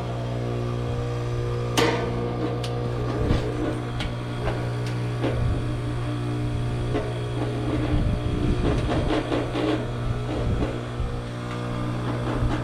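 Trane heat pump outdoor unit running just after coming out of defrost: a steady low hum with several steady tones above it, and scattered clicks and knocks.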